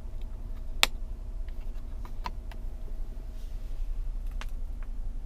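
Sharp clicks of dashboard switches being pressed: one loud click about a second in, then a few fainter ones in the middle and near the end, over a steady low hum.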